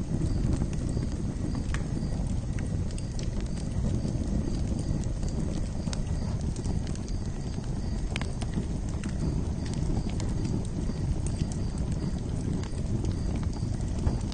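Campfire burning: a steady low rumble of flames with scattered sharp crackles and pops.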